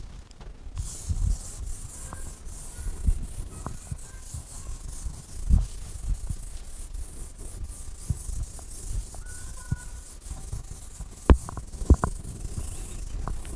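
Soft rubbing and scattered low knocks, with two sharp taps near the end, as a hand wipes an interactive touchscreen board and a stylus taps on it, over a steady hiss.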